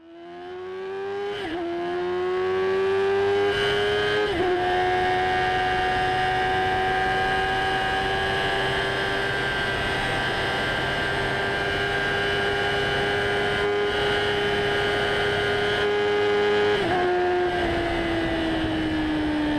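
Motorcycle engine held at high revs, fading in, with its pitch dipping briefly about three times as if shifting gear. The pitch falls away near the end.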